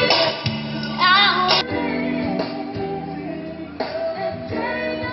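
Recorded music with a woman singing, played loud through line array PA speakers during a sound check.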